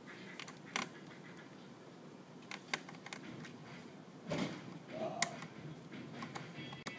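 Scattered small clicks and taps of a small screwdriver and fingers working tiny screws out of a laptop's plastic screen bezel.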